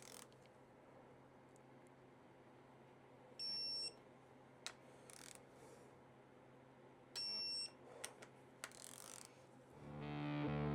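Digital torque wrench beeping twice, about four seconds apart, each a short high beep of about half a second, signalling that a valve-body bolt has reached the set 100 inch-pounds. Faint clicks from the work in between, and music comes in near the end.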